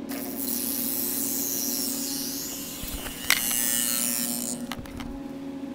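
Carbon arc hissing and sputtering as the carbon electrodes are struck together and drawn apart: one hiss for about two seconds, then a sharp snap about three seconds in and another loud hiss that stops about a second and a half later. A steady low hum from the power supply runs underneath.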